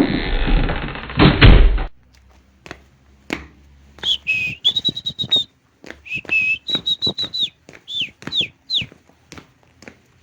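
A loud rushing noise with heavy thuds for about the first two seconds. Then scattered taps and knocks, with a series of high whistle notes: some held, some stepping down, and three short falling whistles near the end.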